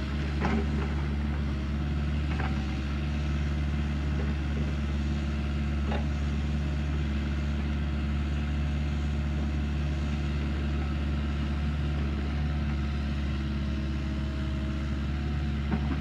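Steady, low engine drone like a heavy vehicle idling, even in level throughout, with a few faint clicks.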